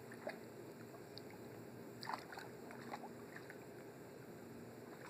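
Quiet splashing and lapping of pool water as a baby paddles and kicks, with a small splash about two seconds in.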